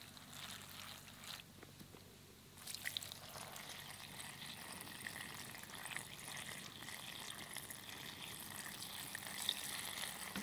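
Water pouring in a thin stream onto cabbage leaves in an earthenware pot, splashing and trickling down between the leaves. A short pour at the start, a brief pause, then steady pouring from about two and a half seconds in.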